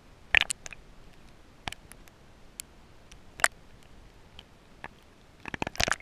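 Irregular sharp clicks and taps heard underwater through the camera: one or two early, single ones at about two seconds and three and a half seconds, then a quick loud cluster of clicks and knocks near the end.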